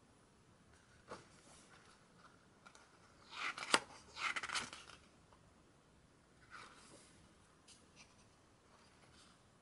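Pages of a thick photobook turned by hand. Stiff paper rustles, with one sharp snap of a page about halfway through and fainter page rustles before and after.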